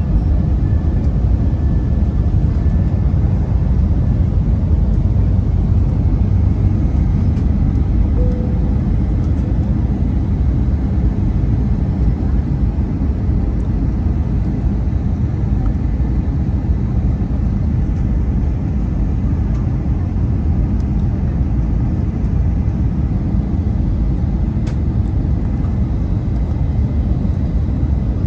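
Airbus A319 cabin noise: a steady low rumble of engines and rushing air, heard from inside the cabin.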